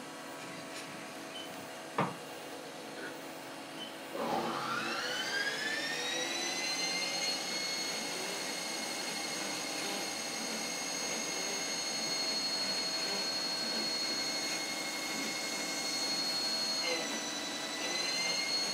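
3D printer running a print: about four seconds in, a high whine glides up in pitch and then holds steady, dipping briefly and recovering near the end. A single click comes about two seconds in.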